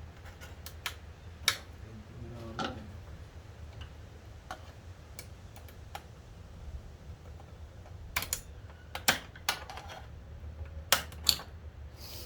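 Scattered clicks and light knocks of hands and a pry tool working the plastic retaining clips and frame of a car seat loose, with a cluster of sharper clicks near the end, over a steady low hum.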